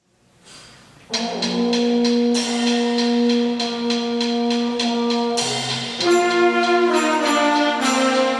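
School concert band with brass starting a new piece after a short silence: about a second in, the band comes in with held brass chords over regular percussive strokes, changing chord about six seconds in.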